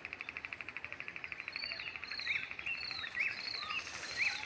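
An insect, likely a cricket, trilling steadily at about a dozen pulses a second. Over it a bird gives a series of short chirps, about five arched high notes and three sharp upswept ones in the second half.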